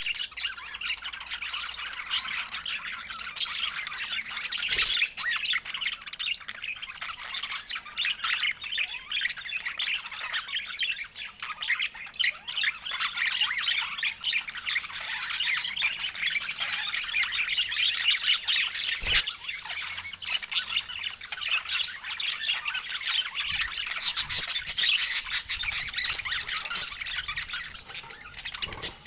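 Budgerigars chattering and chirping continuously in a busy warble, with a sharp click about five seconds in and another a little before the twentieth second.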